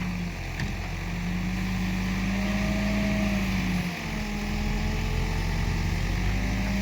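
Backhoe loader's diesel engine running steadily under working load, its pitch and level dipping briefly about four seconds in.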